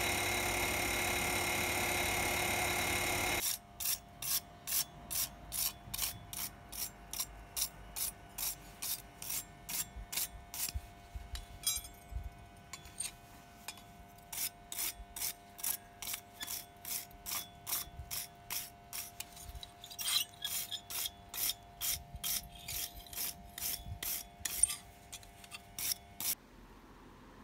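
Hand wire brush scrubbed back and forth over a forged bracelet held on an anvil: a long run of scratchy strokes, about two a second, with a short pause midway, stopping near the end. Before the brushing starts, a few seconds of steady rushing noise.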